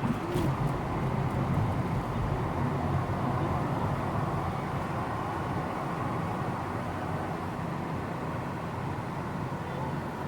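Steady low rumble of motor vehicle engine and road noise, with no single event standing out.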